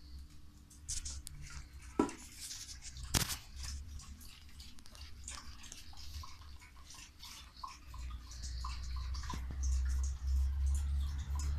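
Australian Kelpie lapping milk from a bowl: a steady run of quick, wet tongue clicks and splashes. There are two sharper knocks about two and three seconds in, and a low rumble underneath near the end.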